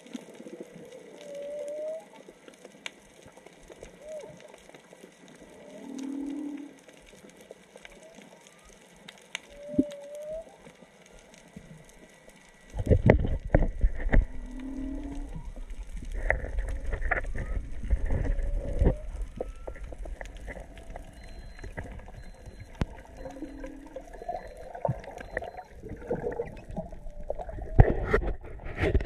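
Humpback whale song heard underwater: short moaning units and rising whoops, repeated every few seconds. From about halfway through, a louder low rumble with knocks close to the microphone joins the calls.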